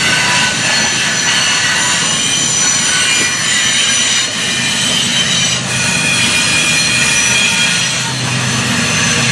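Open-top coal cars of a freight train rolling past, their steel wheels squealing against the rails in several high, shifting tones over a low rumble from the track.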